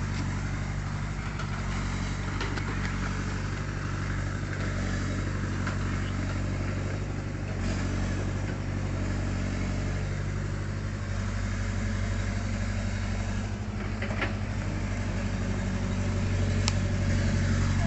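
A vehicle engine idling steadily with a low, even hum, growing slightly louder near the end, with a couple of faint clicks.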